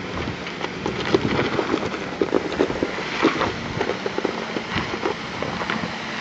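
Suzuki Jimny crawling up a steep, stony dirt slope: its tyres crunch over loose rocks and gravel in many small irregular cracks and pops, over a low, steady engine hum.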